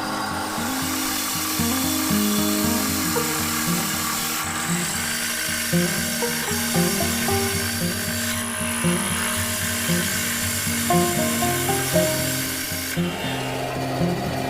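Background music playing over the steady hiss and rub of woodworking power tools. The tool noise changes abruptly a few times.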